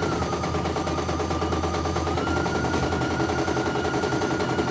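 CNY E900 computerized embroidery machine stitching a design: a rapid, steady needle clatter over a motor whine that drops slightly in pitch at the start and steps back up about two seconds in.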